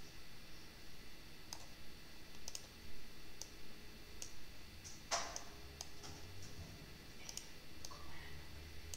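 Computer mouse clicking: a dozen or so single, irregularly spaced clicks, one louder than the rest about five seconds in.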